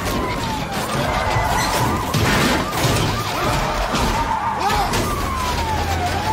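Police sirens wailing, one long sweep falling and then rising again near the end, over a clatter of crashes as the van's kicked-off side door strikes the road.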